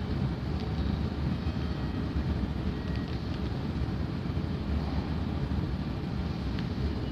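Steady low rumble of an underground subway platform's ambience, even in loudness throughout, with faint thin high tones now and then.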